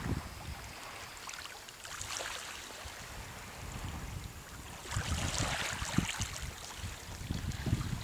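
Wind over calm sea water lapping gently, with wind buffeting the microphone in low gusts from about five seconds in.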